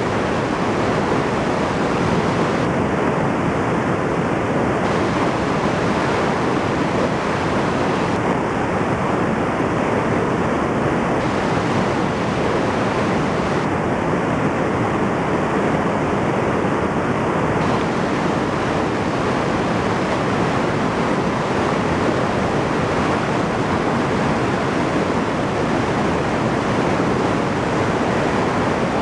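Typhoon-swollen, muddy river in flood rushing over an automatic tilting weir: a loud, steady wash of churning water, unbroken throughout.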